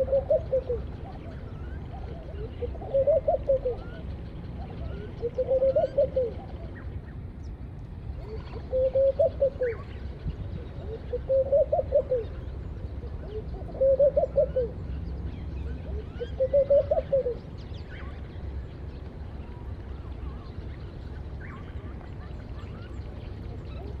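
Laughing doves cooing: a soft bubbling phrase that rises and falls, repeated seven times about every two and a half seconds, then stopping for several seconds near the end. Faint short chirps from small birds sound between the phrases, over a low steady background rumble.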